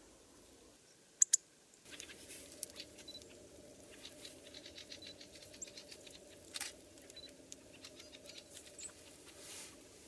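Azure tit pecking at a lump of suet on a branch: a quick, uneven run of soft taps and small clicks, with two sharp clicks about a second in.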